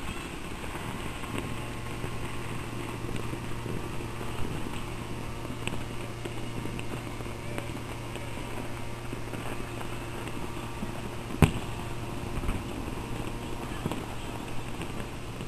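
Steady street and traffic noise with a low hum. A single loud firecracker bang comes a little past the middle, with a few fainter pops of distant firecrackers around it.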